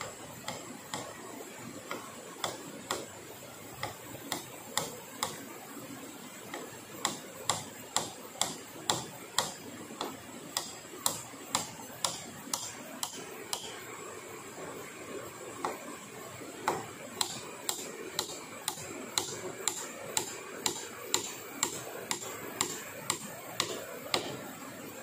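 Repeated sharp blows of a hand tool striking wood, about two a second in runs broken by short pauses.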